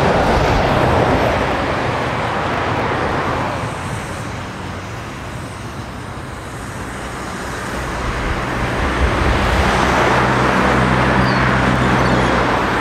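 Ffestiniog Railway narrow-gauge steam locomotive running slowly toward the listener as a steady rushing noise. The noise dips midway and swells again, with a low rumble joining in over the last few seconds as it draws near.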